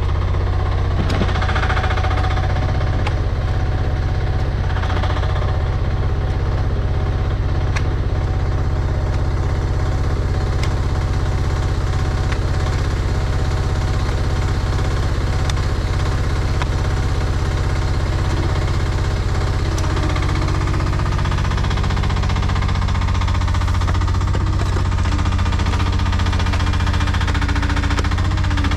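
Chinese mini excavator's engine running steadily as it digs, with a few sharp knocks and clicks from the work.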